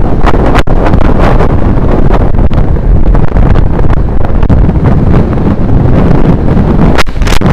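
Loud, continuous wind buffeting on the microphone of a road bike descending at speed, a rumbling roar with a couple of short dips and clicks near the end.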